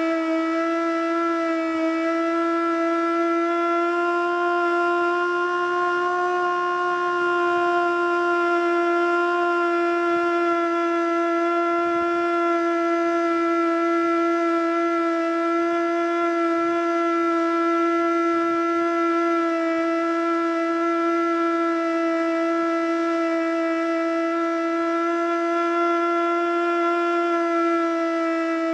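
Federal Signal Model 2 outdoor warning siren sounding a steady alert tone. The tone never reaches the siren's full pitch and wavers slightly up and down, a sign of a sick siren that the uploader puts down to probably worn brushes.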